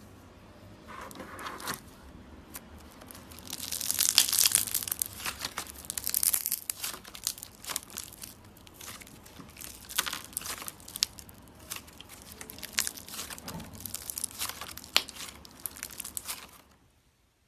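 Mirror putty slime being squeezed and kneaded, its trapped air bubbles popping in a dense run of sharp crackling clicks. It grows louder a few seconds in and stops suddenly near the end.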